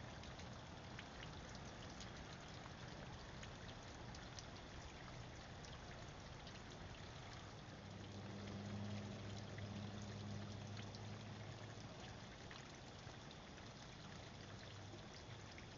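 Faint, steady trickle of water falling through the tiers of a concrete garden fountain, picked up by a trail camera's microphone. A low hum rises briefly between about 8 and 12 seconds in.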